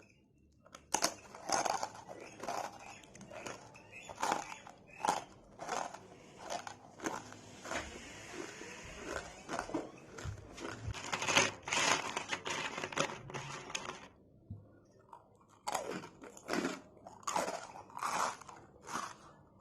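Someone biting and chewing murukku, a crisp fried South Indian snack, close to the microphone. A run of sharp, crackly crunches begins about a second in, pauses briefly near three-quarters of the way through, then starts again.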